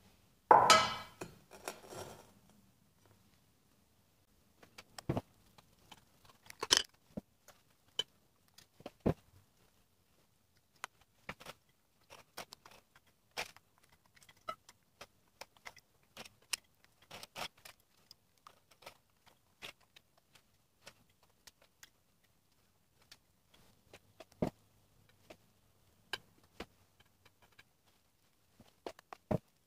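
An oval glass baking dish set down on a wooden board with a loud clatter about half a second in, then scattered light clicks and taps against the glass as biscuits are laid in and mascarpone cream is spread.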